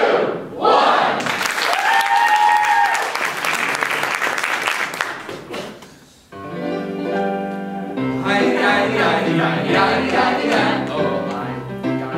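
Audience applause with a brief held whoop, dying away over about five seconds. Then music with singing starts suddenly about six seconds in: held chords at first, growing into a fuller passage.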